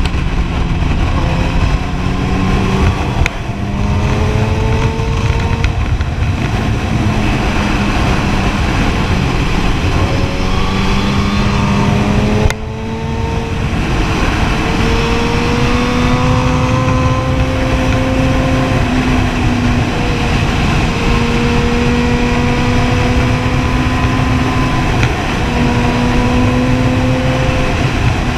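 Kawasaki Ninja ZX-10R's inline-four engine accelerating up through the gears: the note climbs, drops at each upshift, then holds at speed with short breaks at later shifts. Heavy wind rush on the microphone runs under it.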